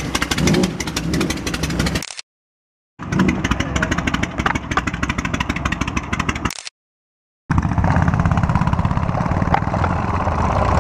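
Custom motorcycle engines running at idle and low revs, with the steady rapid pulse of their exhausts, in three short stretches cut off abruptly by brief silences; in the last stretch the bikes are pulling away.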